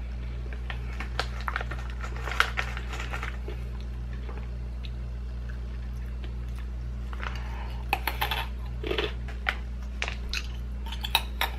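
Thin, crunchy almond-and-rice cheddar crackers (Nut-Thins) being bitten and chewed: crisp crunches in a cluster over the first few seconds, then again from about two-thirds of the way through as another cracker goes in. A steady low hum runs underneath.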